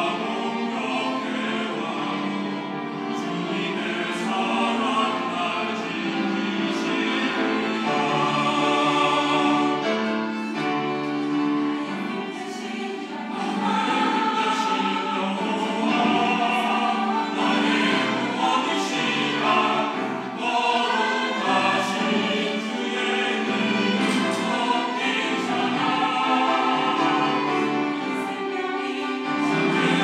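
Mixed church choir of women and men singing a Sunday anthem, with sustained sung phrases and no break.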